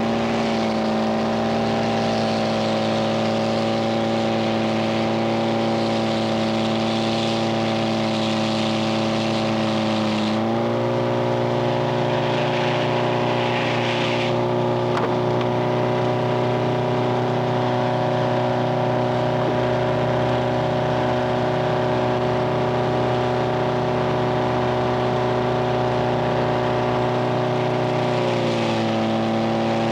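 Frick 00 circular sawmill running steadily, its engine and saw giving a constant hum. The pitch steps up about a third of the way in and drops back shortly before the end.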